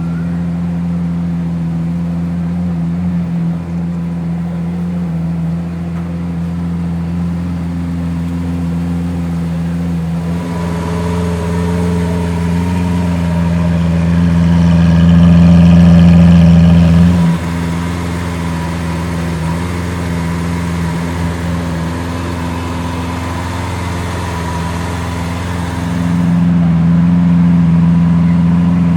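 Lamborghini Aventador V12, fitted with a DMC tuning kit, running at a steady low speed. It grows louder in the middle, drops back suddenly about seventeen seconds in, and swells again near the end.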